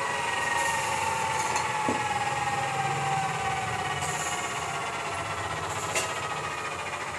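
A machine's whine slowly falling in pitch, over a steady workshop hum, with two sharp clicks and a short rustle of glass wool being handled.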